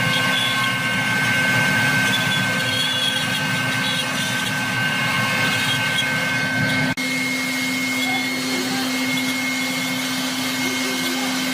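CNC router spindle running steadily with a high, even whine over cutting noise as it carves wood. The sound breaks off for an instant about seven seconds in, then continues with a slightly changed tone.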